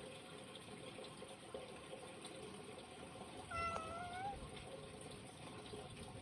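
A cat meows once, a short wavering call that rises at the end, about three and a half seconds in, over a steady background hiss.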